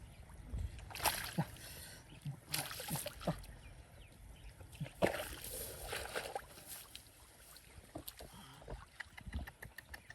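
Shallow muddy water splashing and sloshing in irregular bursts as fish are grabbed by hand in a flooded rice field, with a quick run of small ticks near the end.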